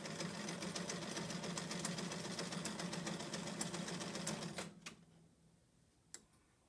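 Electric home sewing machine stitching a seam through layered quilting cotton, running at a steady speed with rapid, even needle strokes. It stops about four and a half seconds in with a couple of sharp clicks, and one faint click follows.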